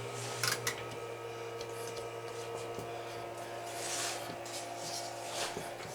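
Steady low electrical hum with a couple of light clicks about half a second in.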